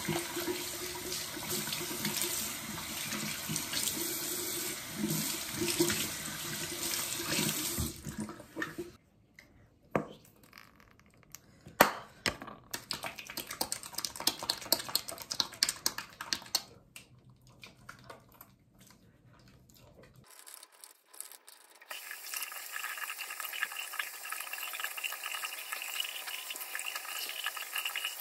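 Water running from a bathroom sink tap and splashing over hands being washed. In the middle it drops to a quieter stretch of light splashes and sharp clicks, then the steady running-water sound returns near the end.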